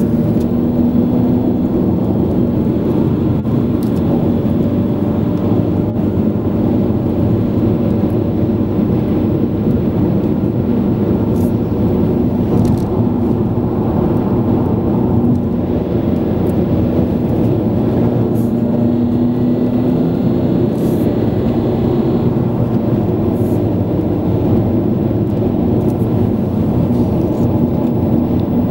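Steady engine and tyre noise heard inside a car's cabin while cruising on a motorway, with a low, even hum.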